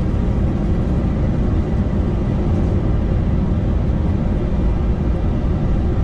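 Boeing 747-200's four engines at takeoff thrust, heard from the flight deck: a loud, steady, deep rumble as the takeoff roll begins.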